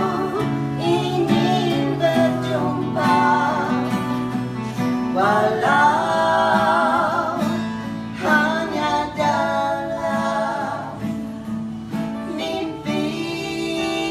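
A group of women singing together, accompanied by a strummed acoustic guitar and a second plucked string instrument. The singing comes in phrases with short breaks between them, while the guitar chords carry on underneath.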